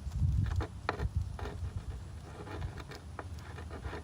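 Rotary coax cable stripper being spun around the cable, its blades scoring the jacket with a run of irregular clicks and scraping.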